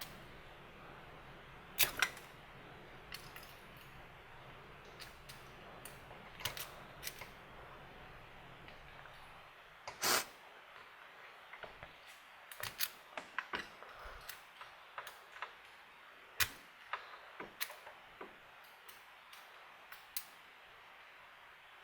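Steel lock pick, a Sparrows Warlock rake, worked in a see-through practice lock: irregular light clicks and taps of pick and pins, with a few sharper clicks, the loudest about two seconds in and about halfway through. The rake keeps oversetting the pins, so the lock does not open.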